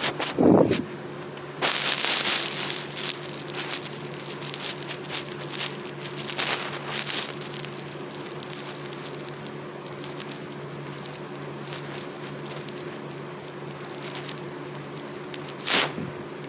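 Crackling, rustling handling noise close to the microphone, with many small clicks. It comes in irregular bursts, with a loud short sound about half a second in and another near the end, over a steady low hum.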